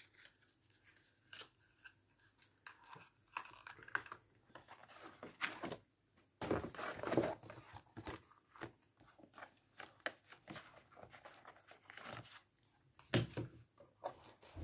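Paper booklets, cards and cardboard inserts being handled and slid back into a cardboard box: intermittent paper rustling with light taps, a longer rustle about six seconds in and a couple of louder knocks near the end.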